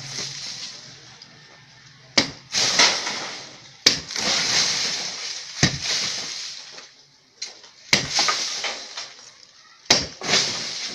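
Repeated heavy blows against a concrete-block wall, five main strikes about two seconds apart, each followed by the crumble and clatter of broken block and rubble falling.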